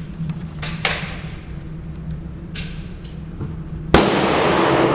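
Pistol shots: two sharper cracks about a second and two and a half seconds in, then a much louder shot near the end with a long echoing tail.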